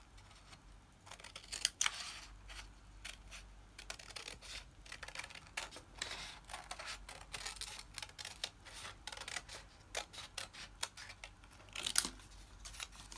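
Children's scissors snipping through a paper plate: a long run of short, crisp cuts with the paper rustling between them, with a louder cluster of snips near the end.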